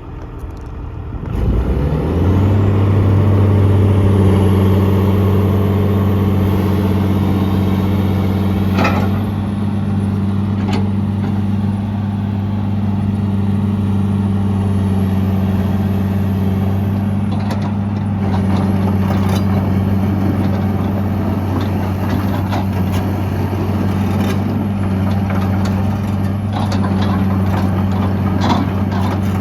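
John Deere 200 LC excavator's diesel engine revving up about two seconds in, then running steadily at high speed. A high whine rises and falls several times over it, with scattered knocks and clatter in the second half.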